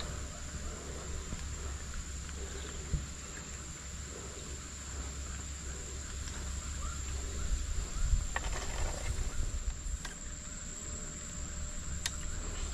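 An insect in the streamside forest droning one steady, high-pitched note throughout, over a low rumble and a few faint knocks.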